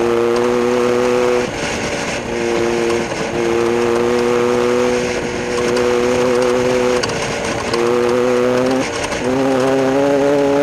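A race vehicle's engine running at a steady pitch. It holds the note for one to three seconds at a time, with brief dips in between, and creeps slightly higher near the end.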